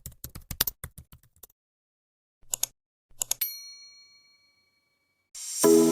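Quick run of keyboard-typing clicks, two more short bursts of clicks, then a single bright ding that rings and fades over about a second. Music comes in near the end.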